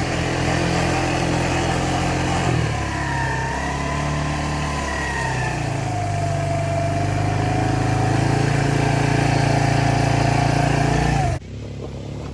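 Small vehicle engine running while driving, with a whine that rises and falls; it cuts off suddenly near the end.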